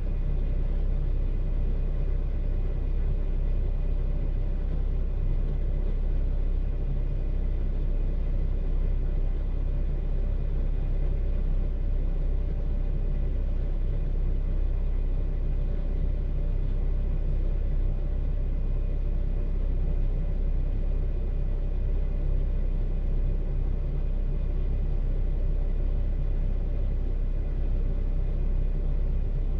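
Car engine idling, heard from inside the cabin: a steady low rumble that does not change.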